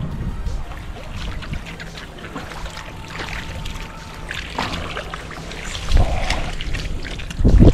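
Cast net drawn by its line through shallow water and up onto the sand, water splashing and streaming off the mesh. Two low thumps about six seconds in and near the end.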